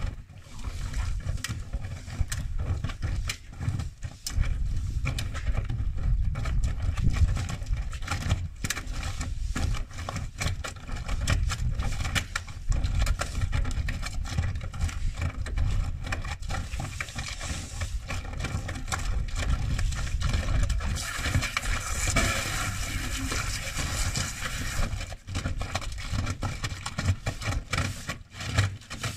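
Gorenje washing machine running in test mode with a deliberately unbalanced load: a heavy low rumble with irregular knocks and thumps from the drum and cabinet. A brighter, higher sound builds for several seconds past the midpoint, then eases.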